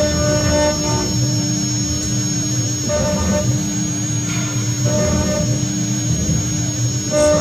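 CNC engraving router at work on a brass plate: the spindle runs with a steady high whine while a pointed engraving bit cuts the metal, under a mechanical hum with lower tones that switch on and off several times as the machine's axes move.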